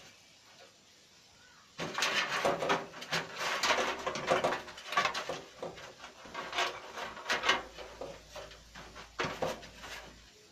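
Clicking, knocking and rattling from hands working inside a metal computer case, handling its power-supply cables and connectors. It starts suddenly about two seconds in as a dense, irregular run of sharp knocks and clicks, then thins out toward the end.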